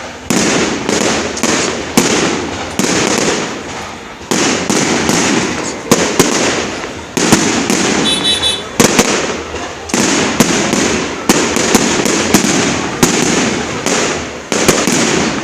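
Fireworks display: aerial shells bursting one after another in a rapid series of loud bangs, about one to two a second, each trailing off in a rumbling crackle.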